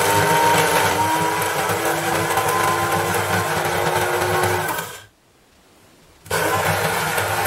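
Electric blade grinder with a stainless-steel bowl, grinding cigar tobacco to a fine powder with a steady motor whine that rises slightly in the first second. It is switched off about five seconds in, winds down, and runs again a second later: grinding in several short passes so the friction does not heat the tobacco.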